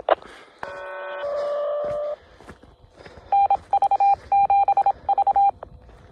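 Electronic signalling tones from a handheld ham radio's speaker microphone as a phone-patch call ends. A click, then a steady chord of several notes held for about a second and a half, then a rapid string of short beeps at one pitch for about two seconds.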